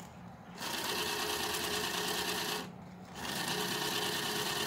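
Toy electronic bank safe's small motor whirring as it draws a paper bill in through its slot. It runs about two seconds, stops briefly, then runs again.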